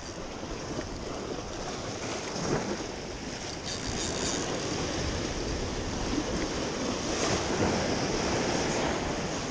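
Sea surf washing and breaking over shoreline rocks, swelling louder about four seconds in and again toward the end, with wind rumbling on the microphone.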